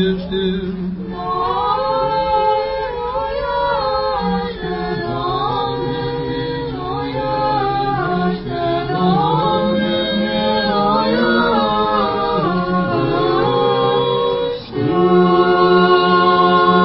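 Orthodox liturgical chant sung a cappella by several voices in harmony, with slow held notes over a steady low note. The singing comes in about a second in and breaks briefly near the end.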